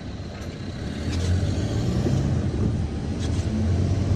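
Car engine and tyre noise heard from inside the cabin of a 4x4 as it pulls away through a gate and gathers speed, getting louder over the first second or so.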